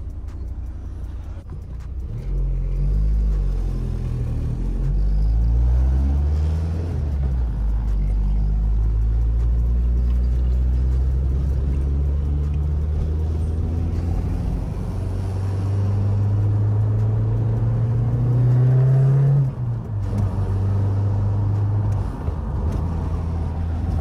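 Audi TT's engine accelerating hard, heard from inside the cabin: the revs climb, drop at a gear change a few seconds in, climb again and drop at another shift about three-quarters of the way through.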